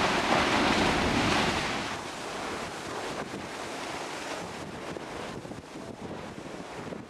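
Molten lava spattering and churning in Kilauea's Pu'u O'o vent: a steady rushing like surf that drops in level about two seconds in, with faint crackles later. Wind buffets the microphone.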